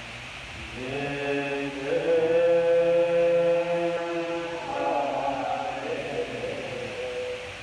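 Buddhist practitioners chanting together in long, held tones. The chant swells about a second in, holds one loud note, moves to a new pitch, and falls off near the end.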